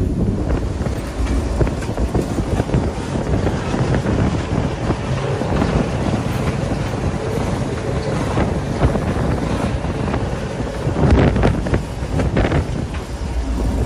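Wind buffeting the microphone at the open cab window of a moving CF7 diesel locomotive, over the steady low rumble of the locomotive and its wheels on the rails. A few sharper clatters come about eleven to twelve seconds in.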